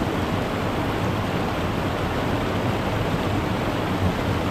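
A steady, loud rushing noise with no separate events, heavy in the low end, cutting off suddenly at the end.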